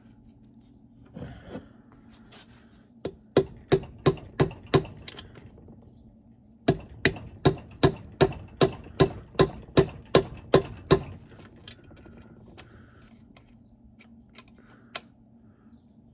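Hammer blows on metal, a run of about six strikes and then, after a short pause, about a dozen more at roughly two to three a second, each with a brief metallic ring: hammering to drive out the NV3500 transmission's shifter detent plug without a slide hammer.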